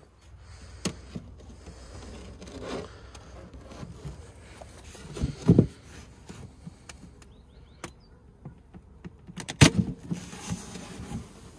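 Honeybees buzzing around a hive, with scattered knocks and clicks: a low thump about halfway through and a sharp, louder knock near the end.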